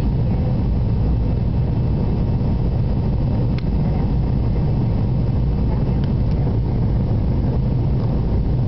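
Jet airliner cabin noise during the climb after takeoff: a steady low rumble of the engines and rushing air, heard inside the passenger cabin.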